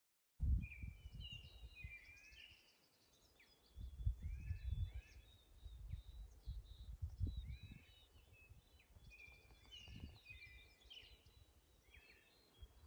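Songbirds singing in short, repeated chirping and warbling phrases, starting about half a second in, over a low rumble of wind on the microphone that swells and fades.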